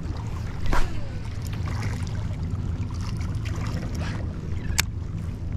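Many small scattered splashes of fish hitting the water surface, so many it sounds like it's raining, over a steady low wind rumble on the microphone. One louder knock comes about a second in.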